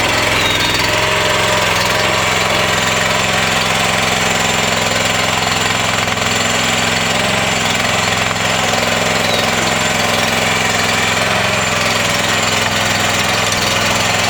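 SD Lanch SDLL60 mini skid steer loader's engine running steadily.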